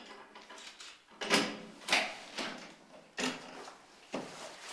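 Glass-panelled door being opened: handle and latch clicking and knocking, about five sharp sounds, the loudest a little over a second in.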